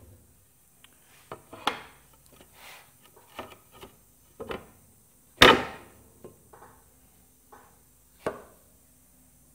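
A cocobolo board being shifted and butted into place on a sliding table saw's carriage and fence: about ten irregular wooden knocks and clacks, the loudest about five and a half seconds in.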